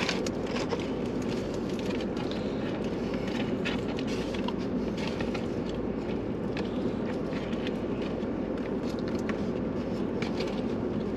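Paper takeout boxes rustling and plastic forks clicking as food is eaten, many small scattered clicks and crinkles over a steady low hum inside a car.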